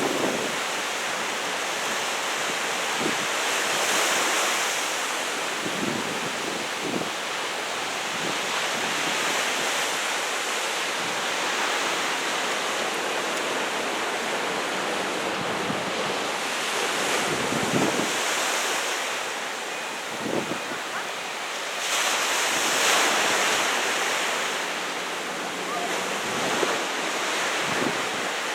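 Ocean surf from typhoon swell breaking on the beach: a continuous wash that swells louder a few times as sets come in, with wind buffeting the microphone in short low thumps.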